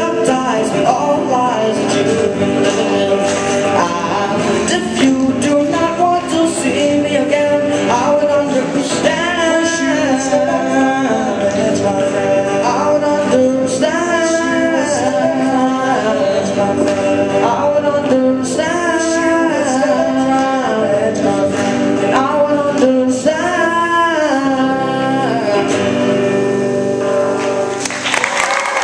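Two acoustic guitars strummed under a young male voice singing a pop-rock ballad. The song ends near the close and applause starts.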